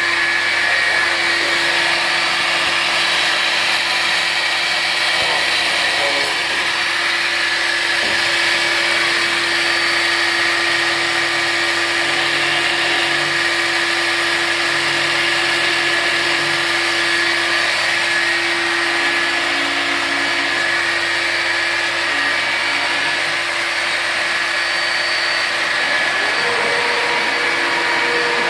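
CNC wood router spindle running steadily while machining a wooden board: a constant whine over a rushing noise, with small changes in the lower sound as the cutter works.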